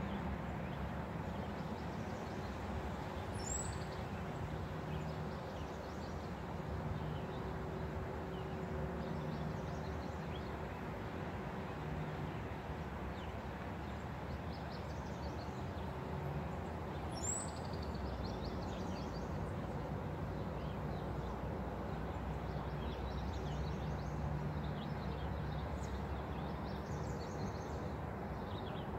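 Steady outdoor background noise with a low hum, and a short high bird chirp twice, a few seconds in and again about halfway through.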